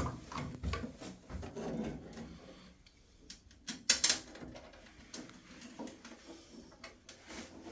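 Scattered clicks and light knocks of tools and metal fittings being handled as a boiler's gas valve is refitted, with one louder knock about four seconds in.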